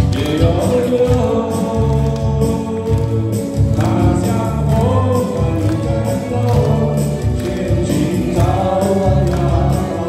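A man singing a Chinese song into a microphone, amplified over a karaoke backing track with a steady bass beat.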